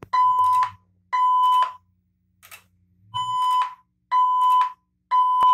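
Fire-alarm voice-evacuation speaker strobe sounding the temporal-three evacuation tone between announcements: three steady beeps about a second apart, a pause, then three more.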